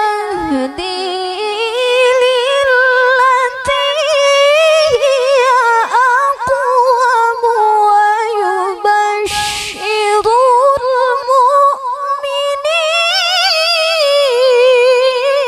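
A woman reciting the Qur'an in the melodic tilawah style into a microphone, holding long notes decorated with rapid wavering ornaments.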